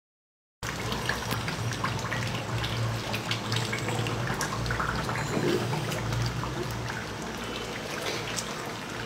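Duck curry cooking in a pot: a dense spatter of small crackles and pops over a steady hiss, with a low hum underneath. It starts abruptly about half a second in.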